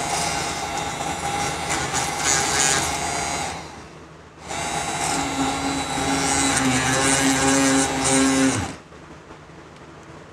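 Homemade mini drill, a 775 DC motor in a PVC-pipe body with a brass chuck, running and boring small holes into a wooden block. It runs in two stretches of three to four seconds with a brief lull between, and the motor winds down near the end.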